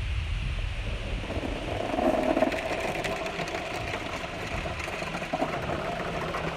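Rain falling steadily as an even hiss, with a steady hum joining about a second in.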